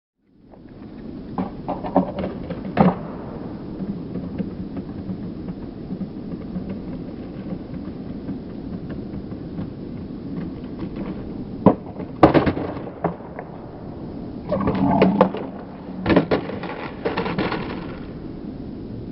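Skateboard wheels rolling on hard ground, with several sharp clacks and impacts from the board popping and landing, clustered near the start and again in the last few seconds.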